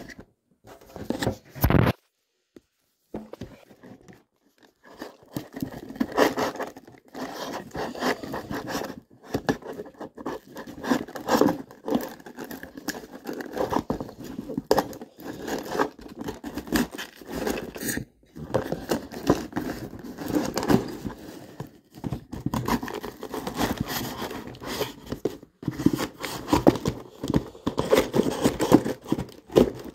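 A cardboard shipping box being opened by hand: irregular scraping, tearing and rustling of cardboard and packing, with a near-quiet gap a couple of seconds in.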